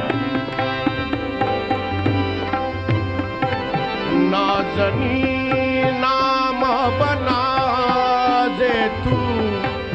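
Live Afghan song accompaniment: tabla drumming under melodic instruments, with a male voice's wavering, wordless melodic line through the middle.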